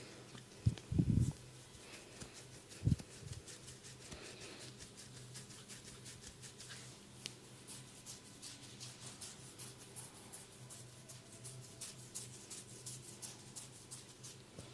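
Hands working on a person during a massage: a few dull thuds in the first three seconds, then a long run of faint, quick ticking and rubbing sounds.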